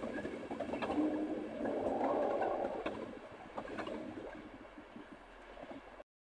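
InterCity 225 electric train running away along the track, its rumble swelling briefly and then fading, with occasional clicks. The sound cuts off suddenly near the end.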